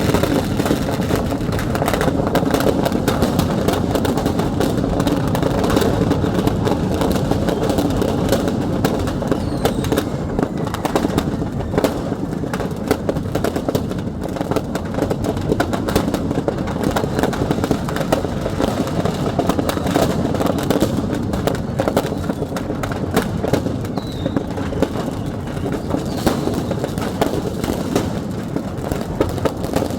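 Firecrackers going off in a dense, continuous crackle of small pops over a steady din: fireworks stock exploding in a shop fire.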